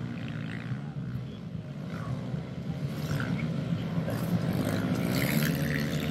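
Several small 110cc four-stroke pit bike engines running at race pace, their pitches overlapping and rising and falling as the riders work the throttles.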